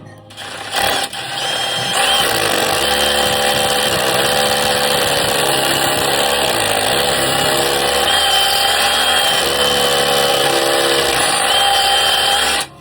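Power drill running under load, winding up over the first couple of seconds and then holding steady before cutting off abruptly near the end.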